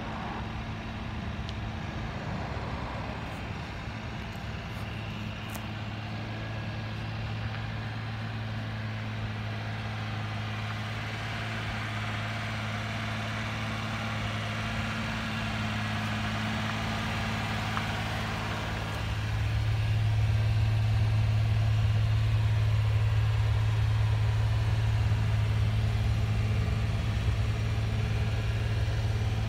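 Suzuki Carry kei truck's small three-cylinder engine idling steadily with an even, unchanging hum, growing louder about two-thirds of the way through.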